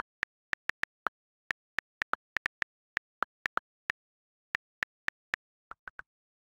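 iOS on-screen keyboard key clicks as a message is typed: about twenty short, sharp clicks at an irregular typing pace, a few of them slightly lower in pitch, then three fainter clicks near the end.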